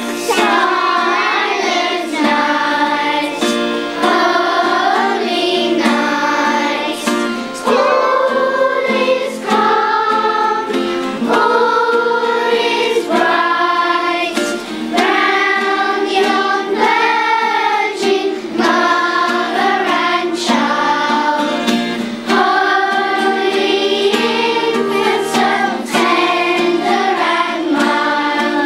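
Children's choir singing a Christmas carol, held sung notes with short breaths between phrases.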